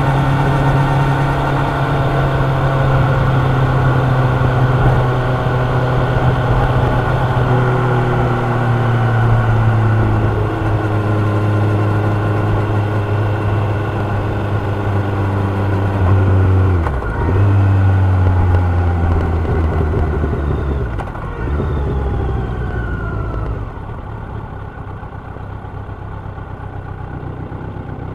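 Kawasaki Ninja 1000's inline-four engine winding down as the motorcycle slows, its note falling steadily, with a short break and jump in pitch about seventeen seconds in like a downshift. About twenty-three seconds in it drops to a quieter, low idle.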